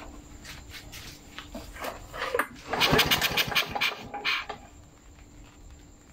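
Victa V35 Commando two-stroke lawn mower engine being pull-started on its first try after a carburettor rebuild. A burst of rapid cranking pulses lasts about two seconds and stops without the engine running on.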